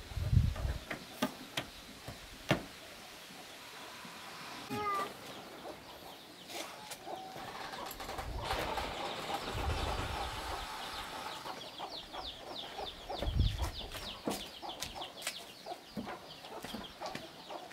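Scattered sharp knocks and clatter, with a short animal call with wavering pitch about five seconds in, amid farmyard background sound.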